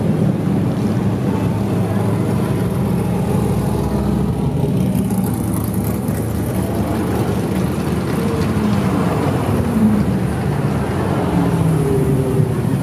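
Traffic of cars cruising slowly past: several engines running together at low speed, their pitch drifting up and down as the cars go by.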